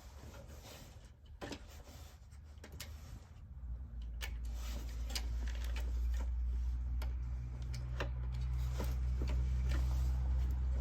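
Scattered light clicks and taps of the diesel heater's parts being handled as its control board is unplugged and taken out. A low, steady rumble comes in about four seconds in and grows louder.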